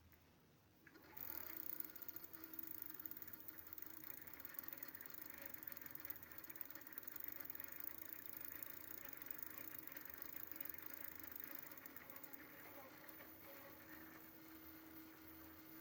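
E-bike's Bafang planetary-geared rear hub motor running. It starts about a second in and runs on as a steady whine over a rough mechanical whirr, easing slightly near the end. The owner treats this noise as a defect after about 1000 km of use.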